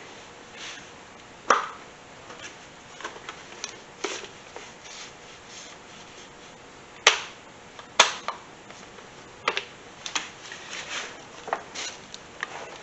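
Scattered light clicks and knocks of tools being handled, over a quiet background; the loudest come about a second and a half in and twice around seven and eight seconds in.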